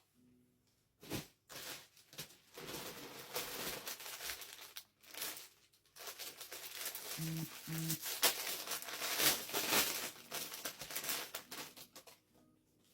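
Plastic packaging crinkling and rustling in irregular spells as items are handled and unwrapped.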